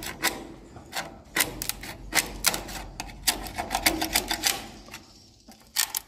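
Metal prying tool scraping and clicking against a zinc sheet as a hardened swiftlet nest is levered off it. The clicks and scrapes are sharp and irregular, several a second, and ease off shortly before the end.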